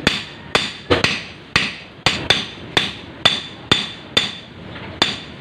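Claw hammer striking a stainless steel rod on a small block: about eleven sharp metallic blows, roughly two a second, each ringing briefly. The rod is being hammered flat to form a jig lure.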